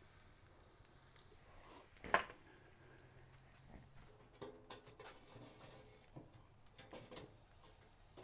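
Raw chicken wings sizzling faintly on a hot grill grate, with light scattered clicks of metal tongs against the grate, the sharpest about two seconds in.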